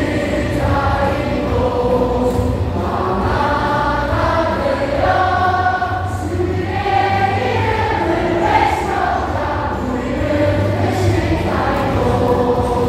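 Baseball stadium crowd singing a team cheer song together in unison, with amplified backing music.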